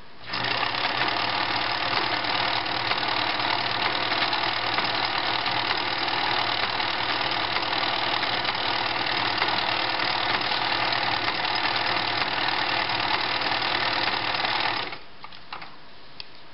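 1970s New Home model 900 sewing machine running steadily, stitching a decorative leaf pattern. It starts just after the beginning and stops about a second before the end, followed by a few light clicks.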